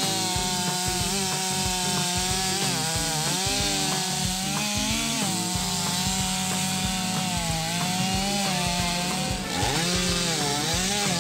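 Two-stroke chainsaw cutting into a large tree trunk, running at high revs without a break. Its pitch sags and recovers several times as the chain works in the cut.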